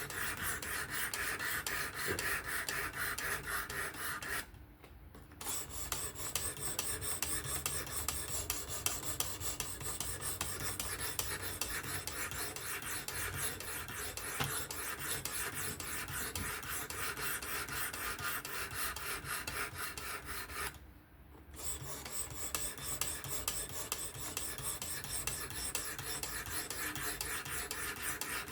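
Knife sharpening: the Spyderco Kapara's S30V steel blade is drawn over and over across an abrasive stone on a Work Sharp Professional fixed-angle sharpener, making a steady run of rasping strokes. The strokes stop briefly twice, about 5 seconds in and about 21 seconds in.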